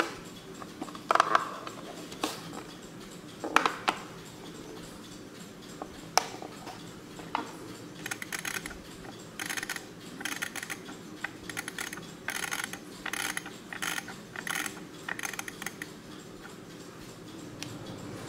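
Kieninger Kundo 2000 quartz flip clock being handled and set by hand. It gives a few sharp knocks in the first seconds, then from about eight seconds in a run of quick clicking rattles, two or three a second, from its setting mechanism as the minute flaps flip over.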